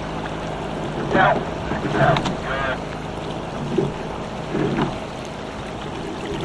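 Sculling shell being rowed: the oars work in the oarlocks with a squeak or knock every second or two, over water running along the hull and a steady low rumble of wind on the microphone.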